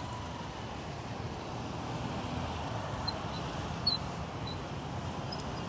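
Street traffic, with motorcycle taxis and cars running steadily past. About four seconds in there is a short sharp click, and a few faint high chirps come around the middle.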